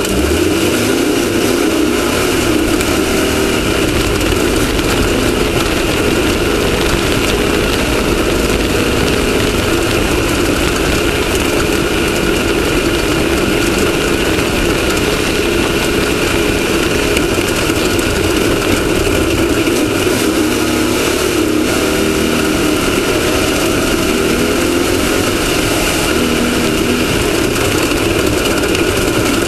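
Class 1600 desert race buggy's air-cooled Volkswagen 1600 cc engine running loud and steady at speed, heard onboard, with little change in pitch.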